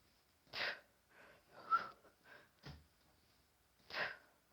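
A woman breathing out hard in short, forceful puffs while doing crunches. There are three main breaths and a few fainter ones between.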